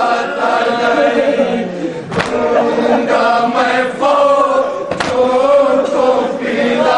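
A group of men chanting an Urdu nauha, a Shia lament, in unison. A sharp slap comes about every three seconds, which fits the rhythm of matam (chest-beating) keeping time with the lament.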